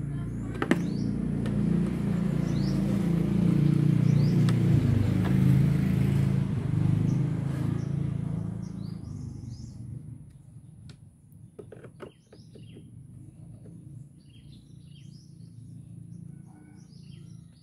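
A passing motor vehicle's engine rumble swells up, peaks and fades away over about ten seconds, with a few sharp clicks of a screwdriver working the scooter's cover screws. Birds chirp once the rumble has died down.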